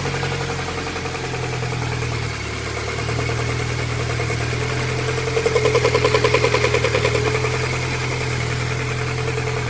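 VAZ-21124 sixteen-valve four-cylinder engine idling with a rhythmic knock. About halfway through, the pulses grow louder for roughly two seconds, then settle back.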